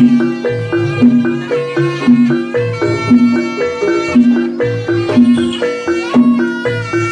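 Live jaranan gamelan music: struck keyed percussion instruments playing a fast, repeating pattern of pitched notes, loud and steady.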